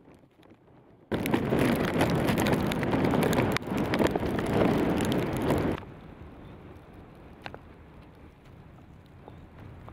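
Wind buffeting the microphone: a loud, rough rush with crackles that starts abruptly about a second in and cuts off just before six seconds. Before and after it there is only a faint steady outdoor rumble with a few ticks.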